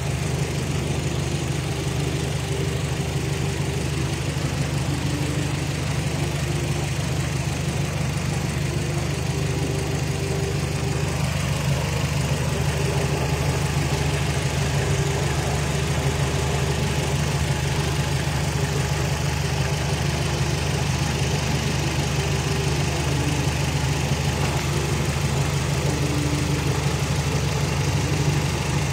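An engine running at a steady idle, a constant low hum that does not change.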